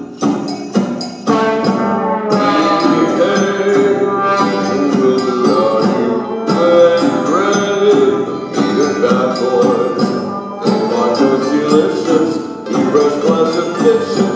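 Live band playing a song: keyboards and other pitched instruments over a steady beat of jingling hand percussion.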